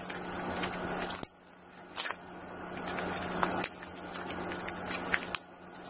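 Crinkling, rustling and clicking of mail packaging being handled and pulled open by hand, broken into short choppy stretches by several abrupt cuts.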